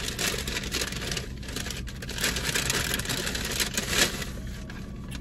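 Takeout food packaging rustling and crinkling as it is handled and opened, busiest about two to four seconds in, over a steady low hum in the car.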